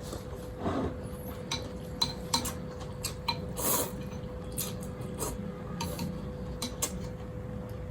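Utensils clicking and tapping against a bowl during a meal of noodle soup, with a few short noisy eating sounds, over a steady faint hum.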